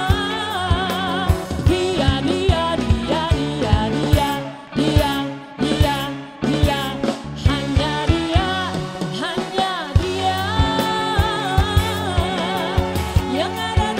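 A song with a singer over a steady drum beat. The bass and drums drop out briefly about five seconds in, then come back.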